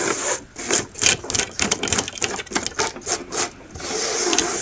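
Quick, irregular scratching and clicking of an object being handled and shifted by hand, then a steadier rubbing rustle near the end.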